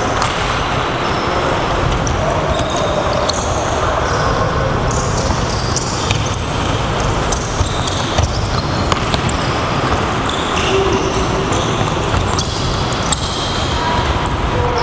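Handballs bouncing and players' feet moving on a sports hall floor during drills: many short, irregular knocks over a steady din.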